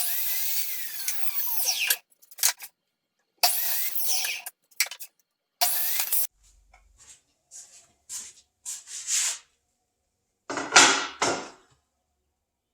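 A woodworking power tool working wooden boards in a string of short bursts of high, hissing noise with gaps between. The first burst is the longest, about two seconds; the later ones are shorter.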